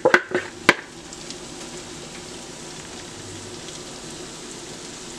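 Parboiled potatoes frying in oil and butter in a cast-iron skillet: a steady sizzle. In the first second, a few sharp taps as a wooden spoon knocks the last garlic out of a plastic bowl.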